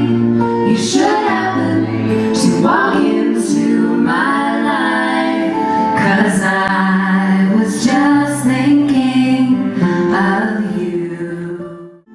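Women's vocal trio singing a country song in harmony over acoustic guitar.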